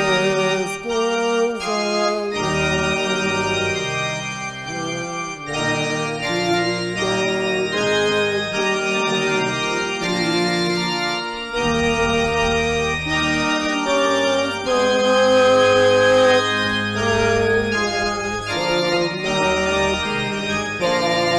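Organ playing slow, sustained chords, the notes changing every second or two.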